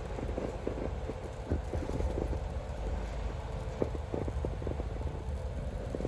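Low road and engine rumble inside a moving car's cabin, with irregular light taps of raindrops striking the windshield.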